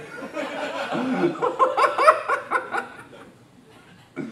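Small audience laughing and chuckling, dying away about three seconds in.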